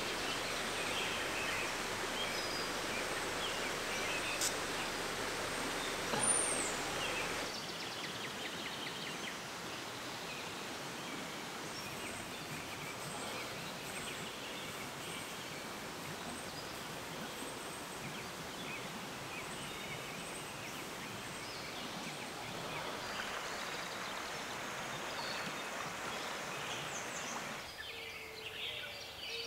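Outdoor ambience: a steady background hiss with scattered short bird chirps and calls, and a brief high whistle about six seconds in.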